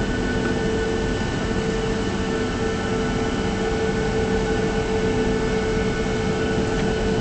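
Boeing 737-700's CFM56-7B jet engines running at taxi power, heard inside the cabin over the wing: a steady rush of engine and cabin air noise with a constant whine running through it.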